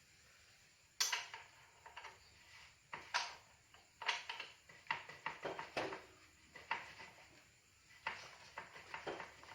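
Metal tools and brake parts clinking and knocking against each other in irregular sharp taps, starting about a second in, as the motorcycle's brake is worked on.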